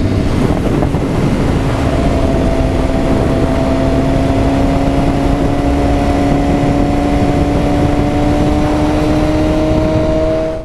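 BMW S1000RR's inline-four engine running at a steady cruise, its note creeping slowly up in pitch, under heavy wind rush on the helmet microphone.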